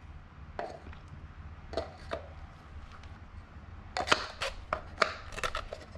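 Scattered light clicks and taps from handling a new oil filter element against its oil filter housing cap while pressing it into place, with a quick run of clicks in the last two seconds.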